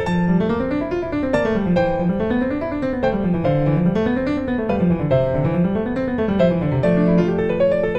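Background piano music: a run of notes repeatedly climbing and falling over lower held notes.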